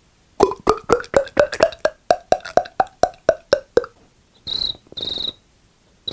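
Mouth-made sound effect: a rapid run of hollow tongue clicks, about five a second, followed near the end by two short hissing whistles.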